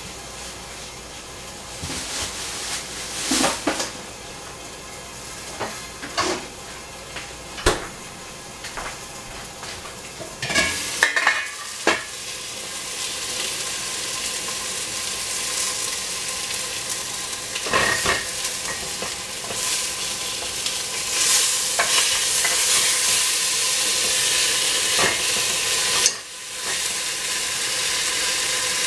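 Food sizzling in a hot pan while it is stirred, with sharp clicks and knocks of utensil and lid against metal pans through the first half. From about halfway on the sizzle grows steadier and louder.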